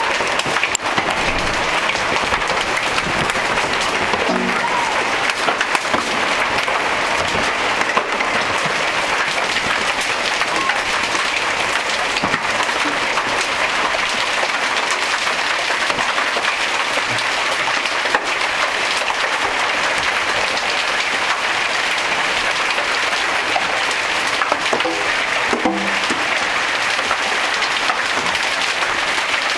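Large hailstones pelting down in a dense, continuous clatter of countless impacts.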